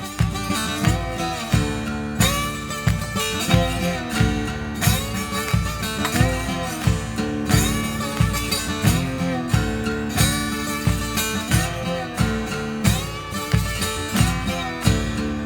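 Background music with a steady beat, led by guitar.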